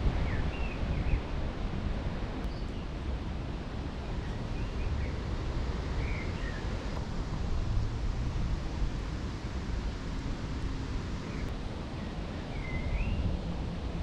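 Wind buffeting the microphone as a steady low rumble, with birds chirping briefly now and then.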